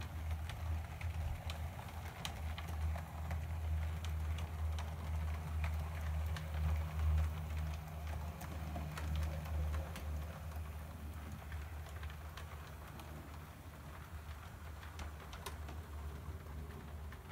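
Model trains running on a layout: a steady low hum from the locomotive motors and the running wheels, with scattered light clicks as wheels pass over rail joints and points.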